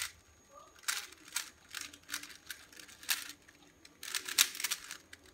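Rubik's cube being turned by hand, its plastic layers clicking and rattling in irregular short runs, busier about four seconds in.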